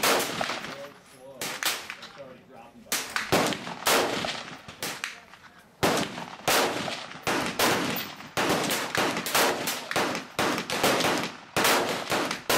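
AR-15 rifle with a Bison Armory 6.8 SPC upper firing a long string of shots in quick succession, at times two or three a second. Each shot is followed by a short echo.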